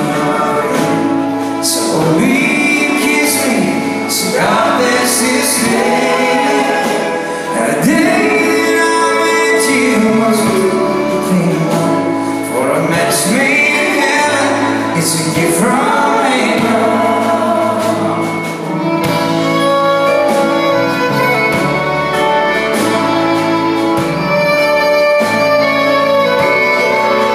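Live country band playing, with fiddle, electric guitar, drums and keyboard. Singing runs through roughly the first two-thirds and then gives way to an instrumental passage.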